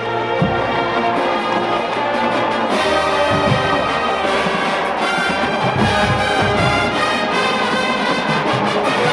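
Marching band brass playing held chords, with a few low drum hits about three seconds apart.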